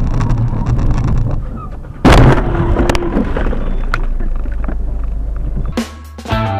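A vehicle's steady low rumble, broken about two seconds in by a sudden loud crash of impact noise with a clattering tail, the sound of a road collision. Guitar music comes in near the end.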